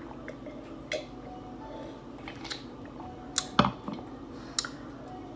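Clicks and knocks from handling a takeout meal's containers and food at the table: a handful of sharp taps, the loudest a knock about three and a half seconds in, over steady low room noise.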